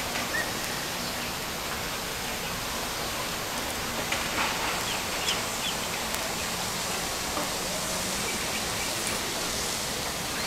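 Steady, even hiss of outdoor ambience heard high up on an open balcony, with a few faint short chirps about halfway through.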